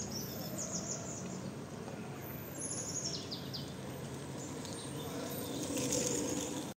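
Small birds chirping in a tree, in short spells near the start, around the middle and near the end, over a steady outdoor background hum.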